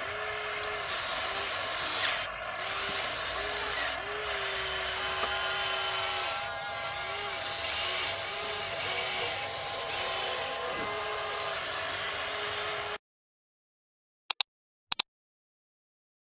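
RC excavator's small electric motors whining in short bursts over mechanical clatter, the pitch rising and falling as the controls are worked. It stops dead about 13 seconds in, leaving silence broken by two short clicks.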